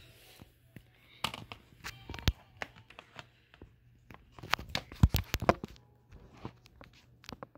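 Handling noise close to the microphone: irregular knocks, taps and rustling as the recording device is moved and propped into place, loudest about five seconds in.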